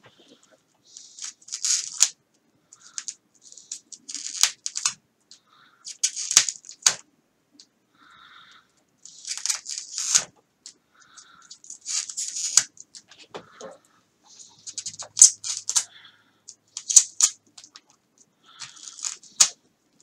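Hands working the foam of a model wing: irregular scratchy, crackling bursts with sharp clicks, as foam is picked out and parts are pressed into the pocket.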